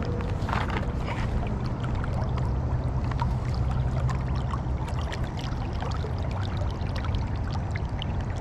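Steady rush of river current flowing around a wading angler, with many small splashes and trickles over a low rumble.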